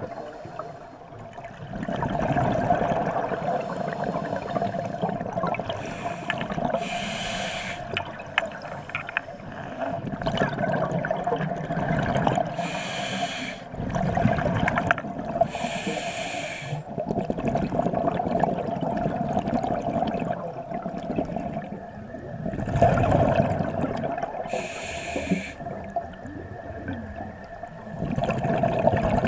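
Scuba diver breathing through a regulator underwater: short hissing inhalations every few seconds alternate with long bubbling, gurgling exhalations. A faint steady hum runs underneath.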